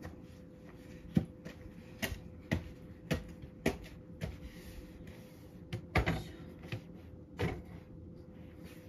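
A series of about eight sharp knocks and clacks, unevenly spaced, the loudest near the middle with a short scrape after it, over the steady hum of a running fan heater.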